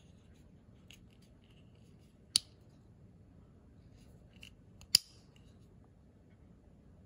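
Spyderco Urban slipjoint folding knife with a damasteel blade being worked by hand: two sharp snaps of the blade against its backspring, one about two and a half seconds in and a louder one about five seconds in as the blade is flicked open, with a few faint ticks of the blade moving between them.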